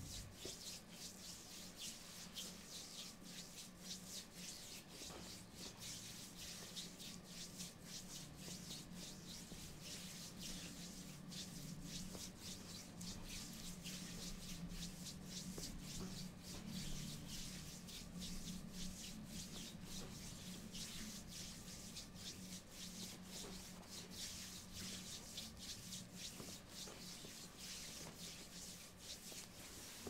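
Oiled hands rubbing and kneading the skin of a lower leg during a massage: a continuous run of many quick, soft swishing strokes.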